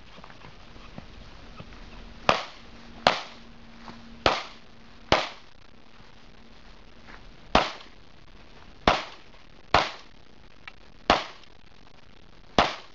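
Pistol shots fired in a practical shooting course of fire: nine loud shots in irregular strings, with a pause of about two seconds after the fourth. A few much fainter pops fall between them.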